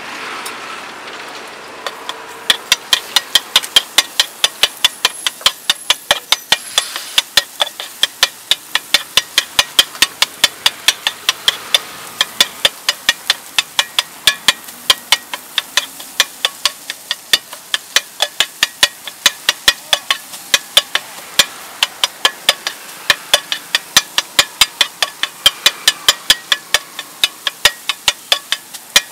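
Flat metal spatula chopping tapioca and egg in a frying pan: sharp metal clacks against the pan, about three a second in a steady rhythm, starting about two seconds in, over a low steady background noise.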